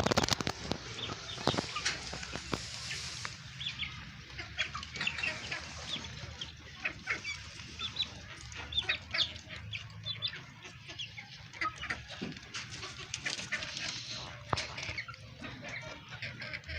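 Chickens clucking, with many short calls scattered throughout. A brief loud noise comes right at the start.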